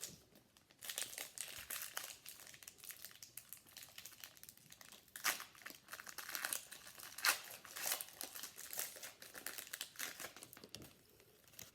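Plastic foil wrapper of a trading-card pack crinkling as it is handled and opened, in irregular crackly bursts that start about a second in and die away near the end.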